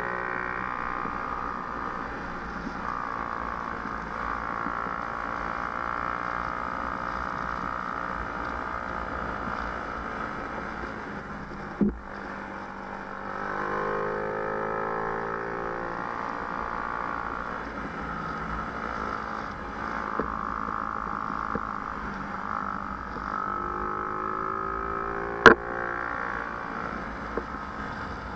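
Engine of a follow vehicle running steadily, its pitch dipping and rising a couple of times as it eases off and speeds up again, over road and wind noise. A couple of sharp knocks stand out, one about halfway and one near the end.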